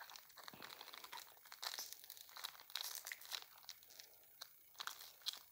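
Foil wrapper of a Pokémon TCG booster pack crinkling and tearing as it is opened by hand, an irregular run of crackles and sharp rustles.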